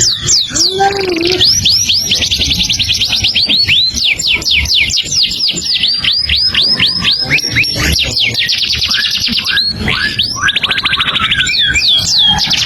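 Songbird singing nonstop: rapid runs of sharp down-slurred whistles alternating with fast buzzy trills, with no pauses.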